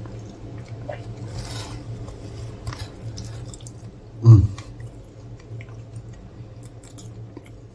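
A man chewing a mouthful of burger, with soft wet mouth clicks and squishes, over a steady low hum. A short voiced sound comes about four seconds in.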